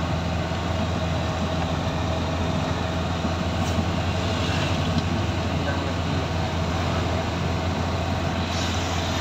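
Steady low drone of a car's engine and tyre noise heard from inside the cabin while driving along at an even speed.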